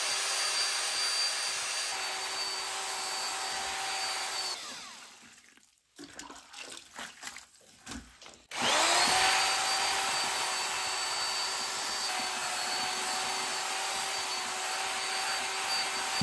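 Drill turning a paddle mixer through a bucket of tile mortar: the motor runs at a steady whine, spins down about four and a half seconds in, and after a few seconds of irregular knocks and scrapes it spins up again and runs steadily.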